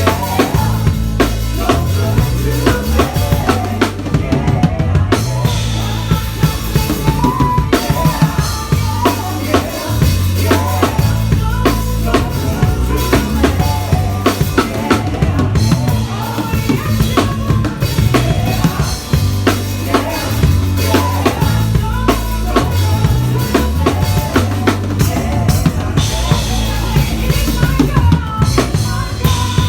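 Drum kit played live with a band: a busy groove of kick drum, snare and rimshots over a steady, stepping bass line.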